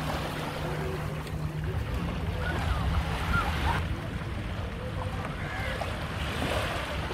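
Wind buffeting the microphone over small waves lapping in shallow water, with a steady low hum that stops about two seconds in.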